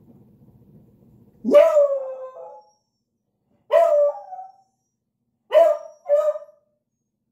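A beagle barking and baying four times: one longer drawn-out call, a shorter one, then two quick calls close together. The calls of a dog left home alone and lonely.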